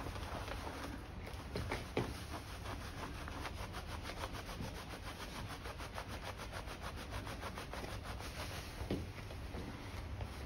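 Cloth rag rubbed back and forth over the scraped bare-steel inspection area of a pipe to clean it with solvent: faint, quick, even rubbing strokes over a low steady hum, with one sharper knock about two seconds in.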